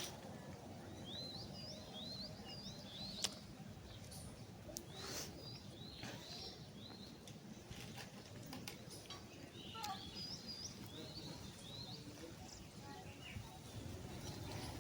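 Birds chirping in repeated short, rising high notes over a low steady background rumble, with a few sharp clicks.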